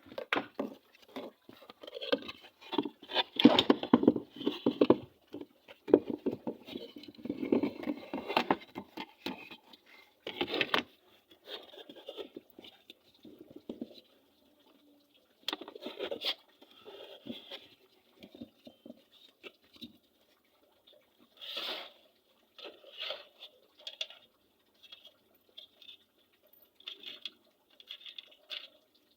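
Irregular clicks, scrapes and light rattles of things being handled, busy for the first ten seconds or so and then coming in sparser, separate bursts. There is no steady running sound.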